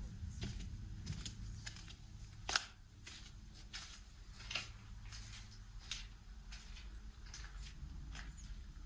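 Slow, irregular footsteps, sharp little clicks about a second apart, the loudest a bit over two seconds in, over a low steady rumble.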